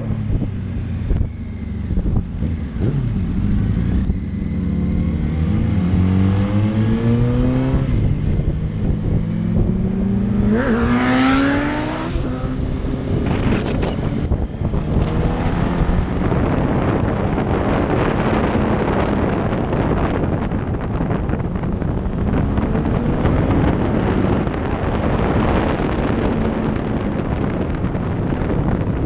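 Yamaha R1 sport bike's inline-four engine accelerating hard, its pitch rising through the revs and climbing steeply to a high scream about ten seconds in. After that the sound is mostly steady wind rush over the microphone at speed, with the engine running fainter beneath it.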